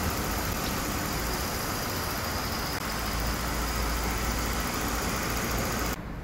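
Mercedes-Benz E-Class (W212) engine idling steadily, heard from the open engine bay. It cuts off abruptly about six seconds in, leaving a quieter sound.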